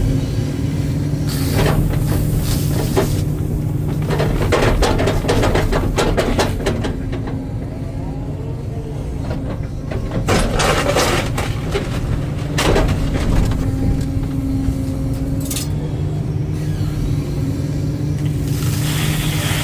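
Hitachi excavator's diesel engine running steadily under load, with several bursts of clattering and scraping as backfill material is moved.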